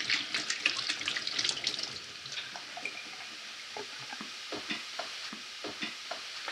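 Chopped onion frying in oil in a pot, sizzling and crackling as its water cooks off. The crackle is busiest for about the first two seconds, then settles to a lighter, scattered sizzle.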